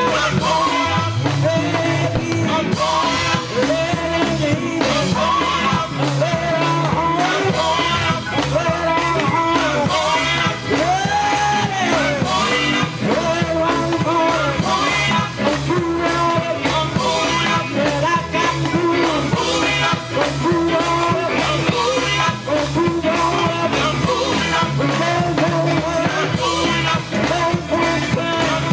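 Gospel group singing live with band accompaniment and a steady beat.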